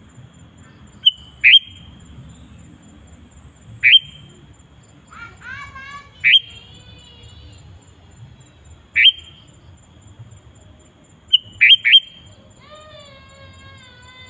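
Sooty-headed bulbul (kutilang) calling: short, sharp whistled notes that drop steeply in pitch, single or in quick pairs and threes a few seconds apart, with softer falling warbled phrases between them and again near the end.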